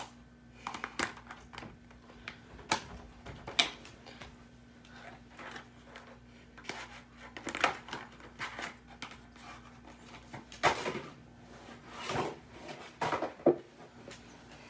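A cardboard toy box being cut and worked open by hand: irregular clicks, scrapes and rustles of packaging, with a few longer scraping strokes near the end.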